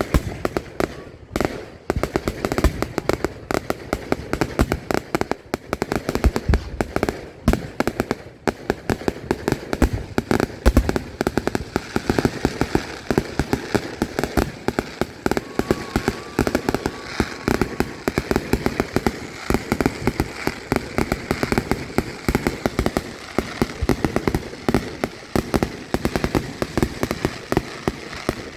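Aerial fireworks going off close by in a dense, continuous barrage of bangs and crackles, many per second without a break.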